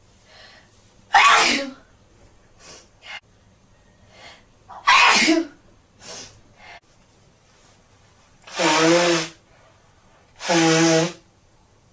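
A person sneezing twice, sharply, then blowing their nose twice in long, pitched blows.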